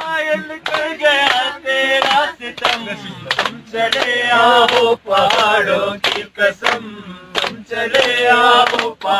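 A man singing a melody in long phrases over music with a sharp, regular beat.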